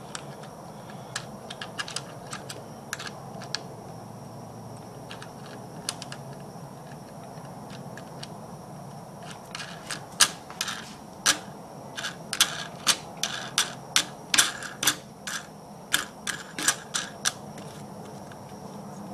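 Metal wing nut spun down by hand onto the threaded stud of the air cleaner cover on a Greyhound 6.5 hp engine, a copy of the Honda GX200. It makes sharp, irregular metal clicks: a few scattered ones at first, then several a second through the second half.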